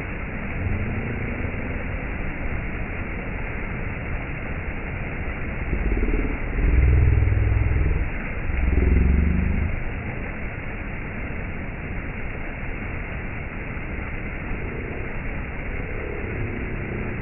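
Steady rushing roar of a waterfall, with a louder low rumble swelling for a few seconds midway.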